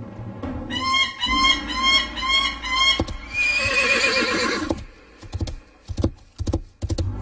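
Horse sound effects: a run of short high whinnies, then a longer whinny falling in pitch as the horse rears, then a quick, uneven run of galloping hoofbeats.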